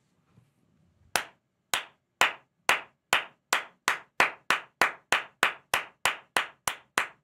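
One person clapping, a slow clap starting about a second in and steadily speeding up, from about two claps a second to about three.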